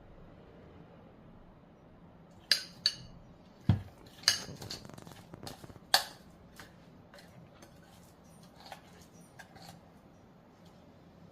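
A kitchen utensil clinking and knocking against a dish as the pie topping is scooped onto the apples: several sharp clinks and one dull knock in the middle, then lighter scattered taps.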